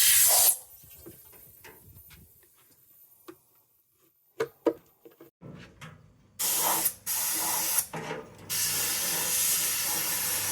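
Harbor Freight abrasive media blaster spraying fine slag grit on compressed air. A loud hiss cuts off about half a second in, then there are a few seconds of faint clicks. Short bursts of hiss follow, then a steady spray from about eight seconds in.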